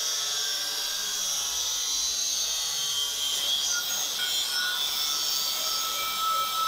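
Angle grinder with a thin cut-off wheel cutting into a steel railroad spike: a steady high-pitched whine of the wheel grinding through the metal.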